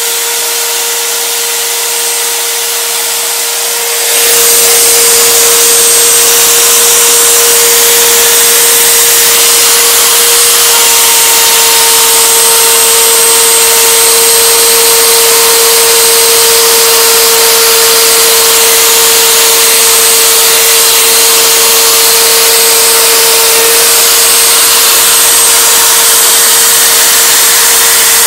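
Wood router serving as the spindle of a homebuilt CNC machine, running continuously at high speed with a steady whine over a loud rushing noise. It is somewhat quieter for the first four seconds, then louder, and a second, higher whine joins about ten seconds in.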